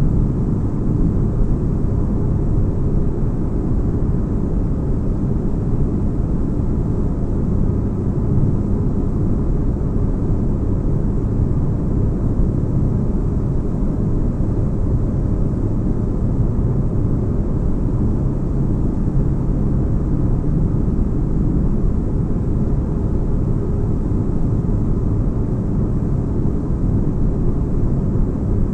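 Steady deep-bass spaceship-interior drone: an even, unbroken rumble with a soft hiss above it.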